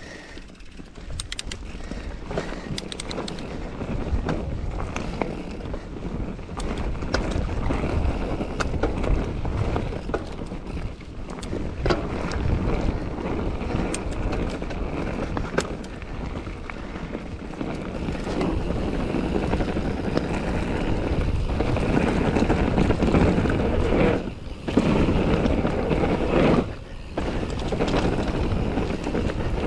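2016 YT Capra AL 1 mountain bike being ridden along a trail: wind buffeting the microphone over the rolling tyre noise, with frequent sharp clicks and rattles from the bike. The rush grows louder about two-thirds of the way through and drops out briefly twice near the end.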